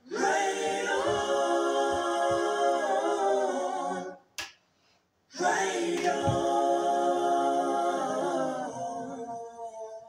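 Music: a choir-like a cappella chord of several voices held for about four seconds, a brief break with a single click, then another held chord that fades out near the end.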